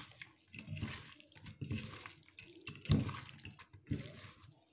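Wet squelching and squishing of a hand kneading raw rohu fish pieces with chopped onion, spices and mustard oil in a steel bowl, in irregular strokes. One sharper knock about three seconds in is the loudest sound.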